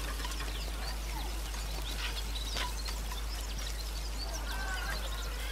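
Onions frying in a small cast-iron potjie pot over a wood fire, a soft steady sizzle with light scraping of a spatula as they are stirred. Birds call in the background, with a held call near the end.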